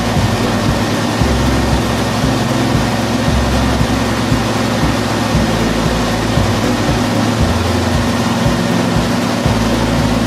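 Industrial car shredder running steadily as a car is fed into it: a constant low engine drone under dense, even mechanical noise, with no distinct crunches or bangs.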